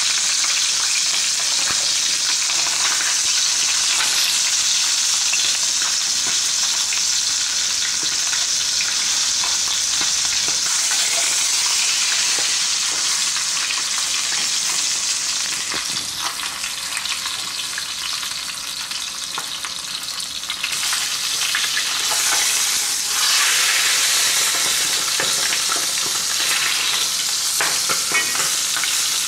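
Whole chicken sizzling as it browns in very hot olive oil in a stainless steel sauté pan, with occasional light clicks of a steel skimmer against the pan as the bird is turned. The sizzle eases a little past the middle and then grows louder again.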